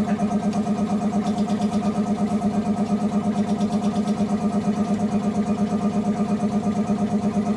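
Automatic glass-cutting machine running: a steady mechanical hum that pulses quickly and evenly.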